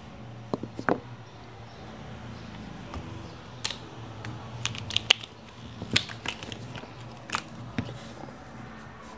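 Irregular small clicks and taps of hard parts being handled while a Marshall Willen II portable speaker is taken apart, over a faint steady low hum.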